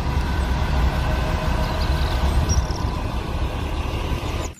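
Heavy diesel engine of a SANY truck crane running at idle: a steady low rumble with a faint hum above it, cutting off suddenly near the end.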